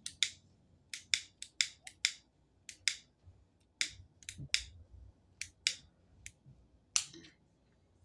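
A lighter's igniter being clicked over and over: about twenty sharp, irregular clicks, sometimes two in quick succession, in an attempt to light a cigar.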